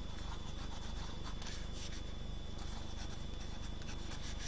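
Steel stub nib of a TWSBI 540 fountain pen writing on lined paper: faint, irregular scratches of the pen strokes over a steady low hum.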